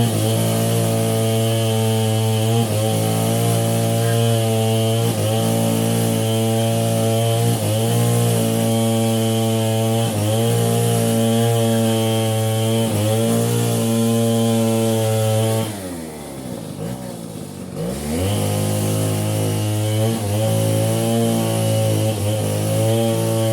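Chainsaw engine running at high speed with a steady pitch that sags briefly every couple of seconds. About two-thirds of the way in, the engine speed drops away for about two seconds and then climbs back up.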